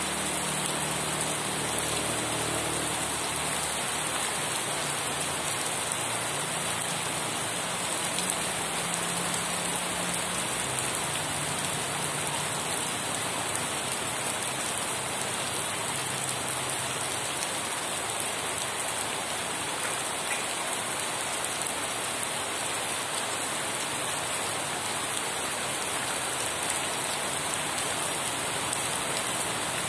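Rain falling steadily and evenly, without a break.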